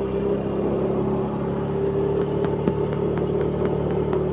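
Motor scooter engine running at a steady speed while riding, a constant even hum.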